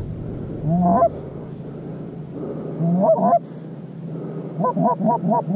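Canada goose honks: a single rising, breaking honk about a second in and another about three seconds in, then a quick run of short clucking honks near the end, as low geese come in over the decoys.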